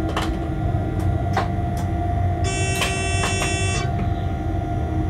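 A locomotive running along the track, heard from inside its cab: a steady rumble and hum with a few sharp clicks. About two and a half seconds in, a high-pitched tone with many overtones sounds for over a second.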